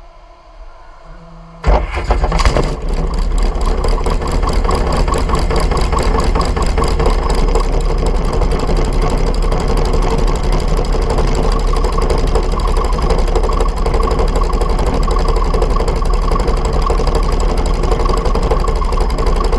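Dragster engine catching suddenly about two seconds in, then running steadily and loudly at idle with a rapid, even pulse.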